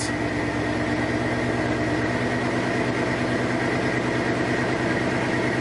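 1984 Chevy pickup engine idling steadily just after a cold start, heard from inside the cab. The owner judges it still running poorly after a change of oil-fouled spark plugs.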